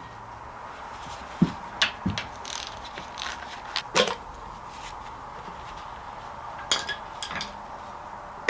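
Hand tools and metal engine parts clinking and knocking at irregular intervals during the teardown of a sludgy Ford 226 flathead straight-six. The loudest knock comes about four seconds in, over a faint steady hum.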